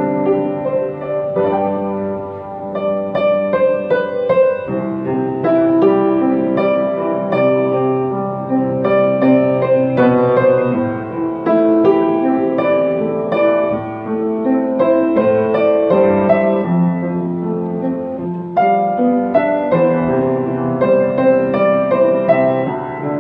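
Upright piano played solo: a continuous arrangement of a Mandarin pop ballad, with a melody over flowing chords.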